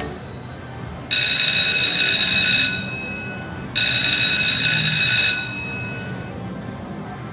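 Electronic ringing tone, sounding twice in steady bursts of about a second and a half each, a second apart.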